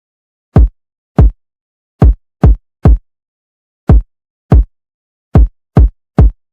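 Electronic kick drum played alone: ten short, deep hits with a quick downward pitch drop, in an uneven programmed pattern with silence between them.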